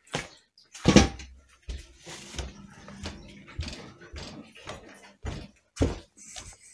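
A series of knocks and thumps, the loudest about a second in, with a faint low hum for a second or two after it.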